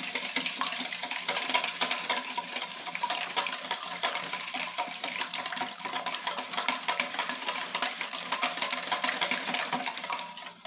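Wire whisk beating two eggs in a stainless steel bowl: a fast, steady metallic clatter and scrape of the wires against the bowl, stopping near the end.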